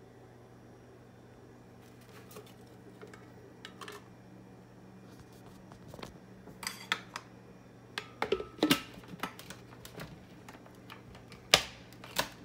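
Scattered clicks and knocks from handling a glass blender jar as a paper cutout is put inside, over a faint steady low hum. The sharpest knock comes near the end. The blender motor is not running.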